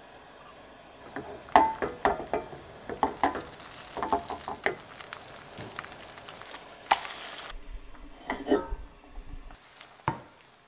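Cooking a thin egg sheet in a ceramic-coated nonstick frying pan on a gas stove: a run of clinks and knocks of a utensil against the bowl and pan, some with a short ringing tone, mostly in the first half. A brief hiss comes about two-thirds through, and a single knock near the end.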